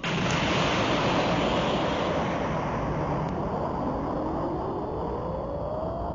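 A sound effect for the monster Kiyla: a dense rushing roar that starts abruptly and slowly fades, with a thin rising whine climbing in pitch from about four seconds in.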